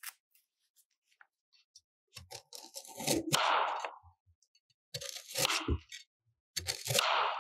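Chef's knife slicing through a raw carrot on a bamboo cutting board: three crunching cuts, each ending with the blade knocking on the wood.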